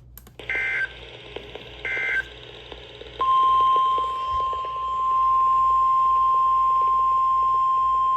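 NOAA Weather Radio emergency alert on a weather radio receiver: two short screeching SAME digital data bursts about a second and a half apart, then the steady 1050 Hz warning alarm tone comes on and holds.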